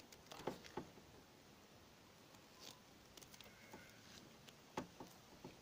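Faint, scattered clicks and scrapes of needle-nose pliers working inside a motorcycle handlebar end, gripping the broken plastic bar-end cap to pull it out; four or five short clicks against near silence.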